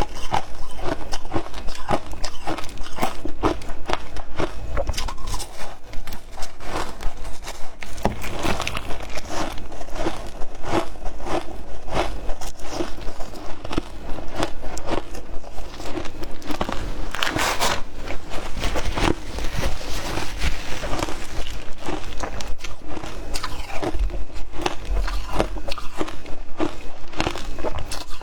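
Close-up crunching of frozen matcha ice being bitten and chewed: a continuous run of sharp, crackling crunches.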